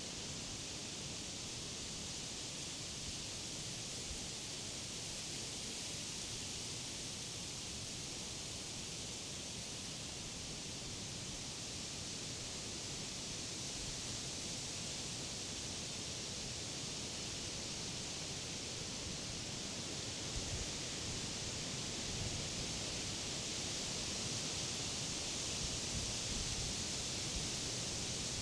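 Wind rustling the leaves of tall summer trees in a steady hiss, swelling a little stronger in the second half.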